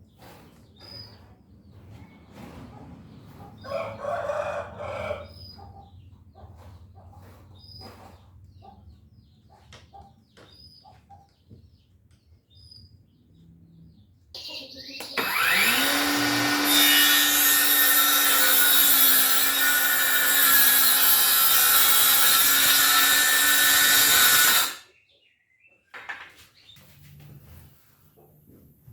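A cordless circular saw's motor spins up with a rising whine about halfway through, runs steadily and loudly for about ten seconds, then cuts off suddenly. Before it come scattered light clicks and knocks, with a short crowing call about four seconds in.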